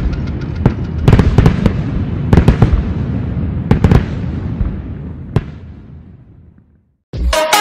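Fireworks crackling and popping, sharp cracks over a low rumble, fading out over the last few seconds. A heavy electronic beat starts just before the end.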